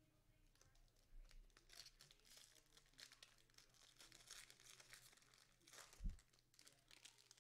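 Faint crinkling and tearing of a trading-card pack wrapper being opened, with a thump about six seconds in.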